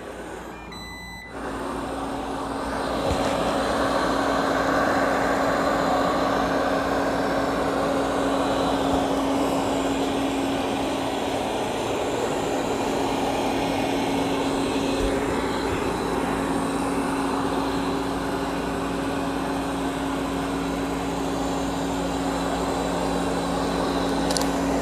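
Amarey A800 robot vacuum running on carpet: a steady hum of its suction fan and brushes with a constant droning tone. It comes in about a second in and holds steady.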